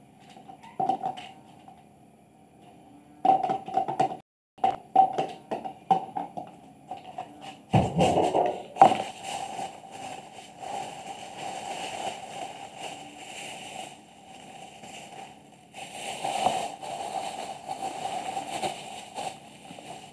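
Dry cat food clattering onto a plastic tray in a run of sharp clicks and rattles, loudest about eight seconds in, followed by several cats crunching the kibble.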